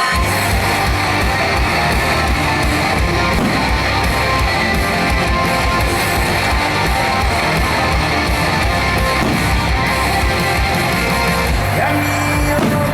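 Guitar-led band music, an instrumental passage without singing, at a steady loud level.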